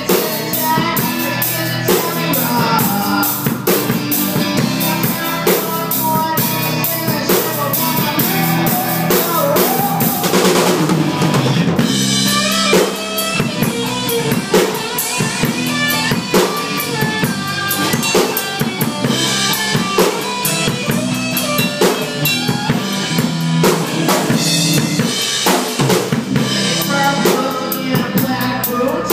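Rock band playing live: drum kit, electric guitars and bass, heard from beside the drums so the kit is loudest. Dense cymbal hits carry the first ten seconds, then the groove changes about twelve seconds in.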